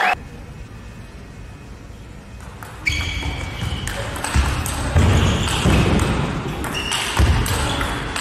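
Table tennis rally: the celluloid-type ball clicking back and forth off the bats and table, with shoes squeaking and thudding on the court floor. It starts about three seconds in, after a quiet pause.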